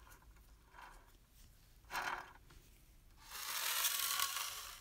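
Rusty tinplate toy parts being handled and scraped: a couple of short scrapes in the first half, then a longer, louder scrape of metal rubbing on the workbench from about three seconds in, stopping just before the end.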